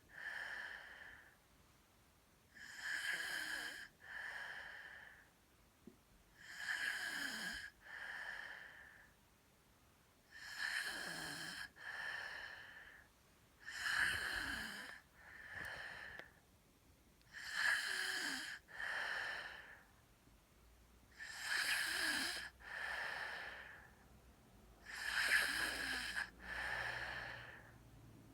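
Snoring at a regular pace, one breath about every four seconds. Each snore comes in two parts: a longer rasp, then a shorter one, each with a steady high whistling note in it.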